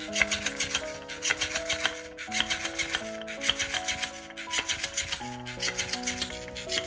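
Electric flopping fish cat toy, its tail flapping and rubbing against carpet in quick, even strokes. Under it runs light background music with a slow stepping melody.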